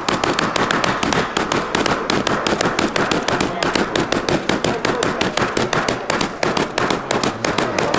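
A small hammer rapidly pounding a paper packet of whole coffee beans laid on a block, several blows a second, crushing the beans into grounds for drip coffee.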